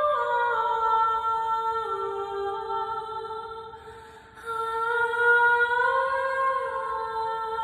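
Slow, soft background music: a melody in long held notes that moves in small steps, fading away about four seconds in before the next phrase begins.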